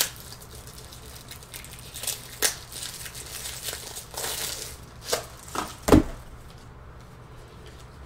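Trading card packs being opened and the cards handled: wrappers crinkling and rustling, with a few sharp clicks. A dull thump about six seconds in is the loudest sound.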